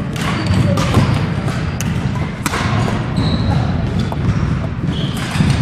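Busy sports-hall noise during badminton: sharp smacks of rackets hitting shuttlecocks, short high squeaks of court shoes on the wooden floor, footfalls, and faint chatter over a steady hall rumble.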